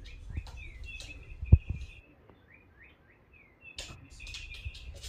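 Rapid, high bird-like chirps and tweets, many short falling glides in quick succession, with a sharp thump about a second and a half in.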